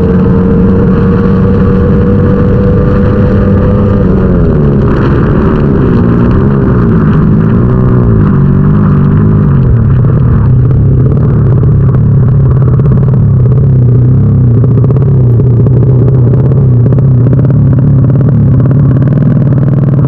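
Racing motorcycle engine heard from an onboard camera, running loud at high revs with a steady, slightly rising pitch. About four seconds in, the revs waver up and down for several seconds, then settle at a slightly lower steady pitch.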